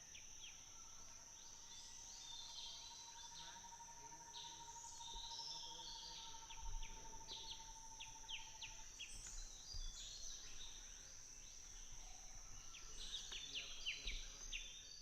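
Forest ambience: a steady high insect drone under many quick, downward-sweeping bird chirps, with a lower, evenly pulsing insect trill through the first half. A couple of soft low bumps stand out, one midway and one near the end.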